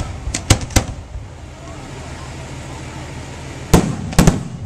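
Aerial fireworks shells bursting: three quick sharp bangs in the first second, then two loud booms close together near the end.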